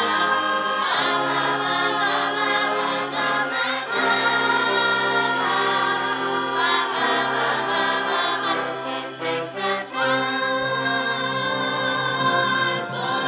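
Brass band playing slow, sustained chords, with the harmony changing every few seconds.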